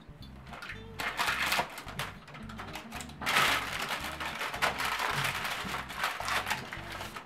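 Baking paper crinkling and rustling as it is folded and pressed into a baking tin, in repeated crackly bursts, loudest about a third of the way in, over background music.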